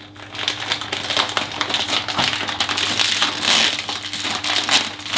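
Plastic chocolate-bar wrapper crinkling and rustling in the hands as someone picks and pulls at it, struggling to get it open.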